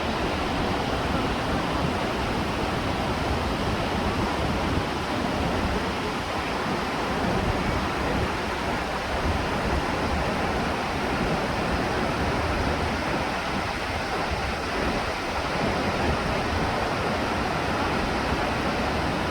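A waterfall's water pouring and crashing in a steady, unbroken rush.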